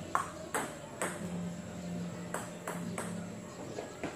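Table tennis ball being served and rallied: about half a dozen sharp, irregularly spaced clicks of the celluloid-type ball striking the bats and the table.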